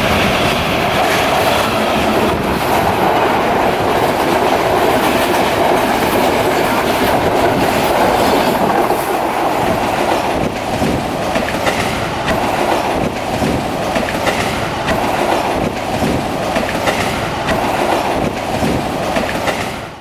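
Train hauled by a Class M4 diesel locomotive passing at speed: a loud, steady rushing rumble with rapid wheel clacks over the rail joints.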